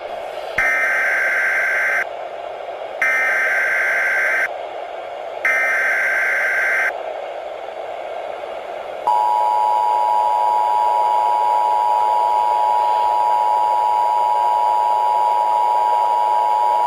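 Emergency Alert System tones: three short bursts of SAME header data, each about a second and a half long, encoding a tornado warning. About nine seconds in comes the two-tone attention signal, a steady dual-pitch tone held for about eight seconds. A constant hiss runs under both.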